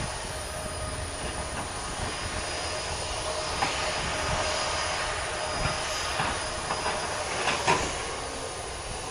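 Airbus A330-200 jet engines running at low thrust as the airliner taxis: a steady rushing rumble with a faint whine over it. A few brief clicks come through near the middle and towards the end.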